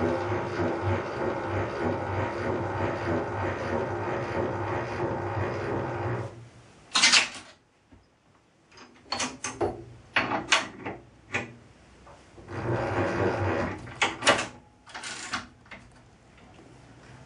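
Milling machine motor running with a steady hum that cuts off about six seconds in. It is followed by a series of sharp metal clicks and knocks as the centre is taken out and a drill chuck is fitted into the spindle.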